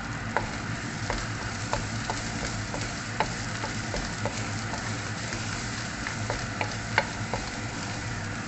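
Curry leaves and spices frying in hot oil in a pan: a steady sizzle, with a utensil clicking against the pan once or twice a second as curry powder is stirred in.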